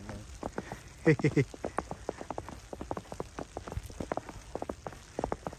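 Footsteps crunching through fresh snow: a dense, irregular crackle of small crunches with no steady rhythm.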